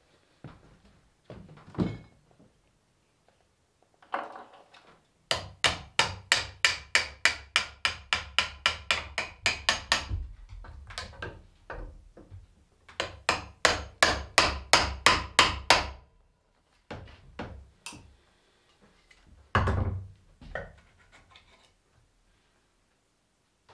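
Hammer striking in quick repeated blows at the old chestnut table's wooden frame, about four a second, in two runs of several seconds each. Scattered lighter knocks come before and after, and one heavier thud comes near the end.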